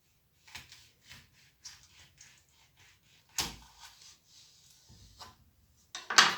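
A run of small clicks and scrapes of things being handled, with a sharp knock about three and a half seconds in and the loudest clatter near the end.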